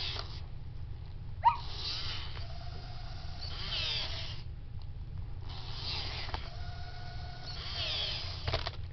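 Zoomer robot dog's wheel drive motors whirring in two spells of about three seconds each as it rolls about on carpet, with a short rising electronic chirp about a second and a half in.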